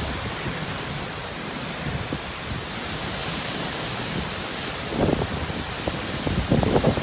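Typhoon wind and rain as a steady rushing noise, with gusts buffeting the microphone about five seconds in and again near the end.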